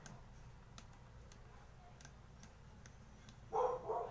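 Faint, irregular ticks and clicks of a small screwdriver working micro Phillips screws out of a cassette recorder's front plate. A dog barks twice, briefly, about three and a half seconds in.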